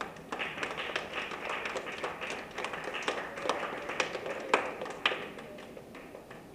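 An audience applauding in a hall: many hands clapping, starting suddenly and dying away after about five seconds.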